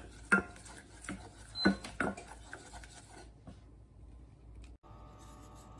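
Wooden spoon stirring and scraping thickened coconut sauce in a stainless steel saucepan, with a few sharp knocks of the spoon against the pot in the first two seconds. A faint steady hum follows near the end.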